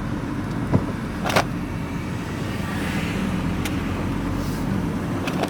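Van engine and road noise heard from inside the cab while driving, a steady low rumble. Two brief knocks or rattles come in the first second and a half.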